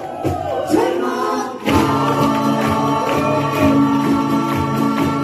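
Live music: several voices singing together with acoustic guitars, the music becoming fuller and steadier about a second and a half in.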